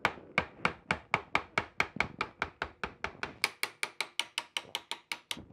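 Ball-peen hammer tapping a steel pin punch in a rapid, even series of sharp strikes, about five a second, driving an already loosened roll pin out of a Porsche G50 pedal cluster.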